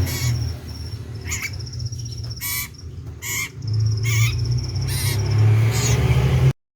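Common iora (cipoh) calling loudly: a string of short, sharp notes about once a second over a high, rapid trill. A steady low hum runs underneath. The sound cuts off suddenly near the end.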